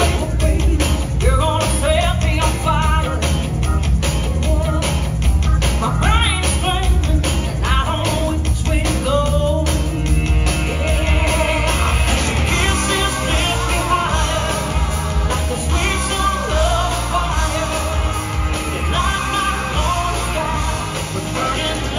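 Recorded pop-rock song with singing and a heavy bass beat, played over a hall's loudspeakers for a dance routine; the arrangement gets brighter about halfway through.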